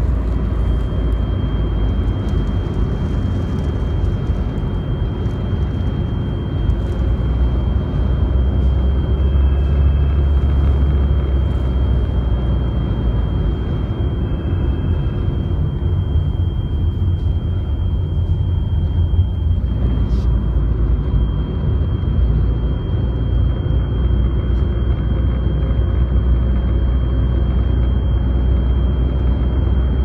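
Car driving through a strong sandstorm wind, heard from inside the cabin: a loud, steady low rumble of road and wind noise that swells and eases, with a faint steady high-pitched tone running under it.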